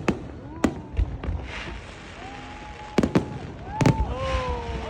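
Fireworks going off: sharp bangs, several in the first second and another cluster about three to four seconds in, with crackling between them.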